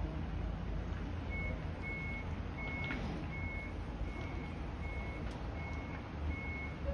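Steady electronic beeping: one high tone repeated about every three-quarters of a second, starting about a second in, over a constant low rumble.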